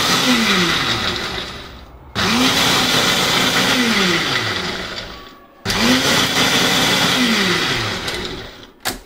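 A Ninja countertop blender with a single-serve cup blends a liquid mixture in pulses. The first pulse is already winding down as the sound begins. Two more follow, each spinning up sharply, running steadily for about a second and a half, then winding down with a falling whine, and there is a short click near the end.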